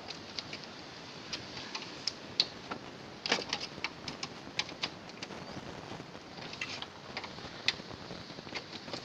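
Irregular sharp clicks and knocks, a dozen or more at uneven intervals, over a steady hiss: a refrigerator being broken apart by hand with a machete for scrap.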